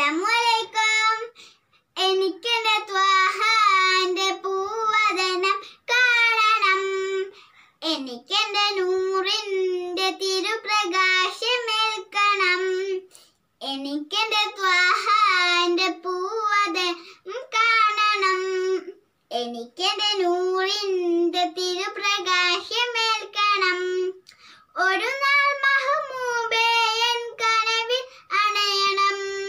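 A young girl singing a Malayalam Islamic devotional song (a mappila song in praise of the Prophet) solo and unaccompanied. She sings in phrases of a few seconds each, with short breaks for breath between them.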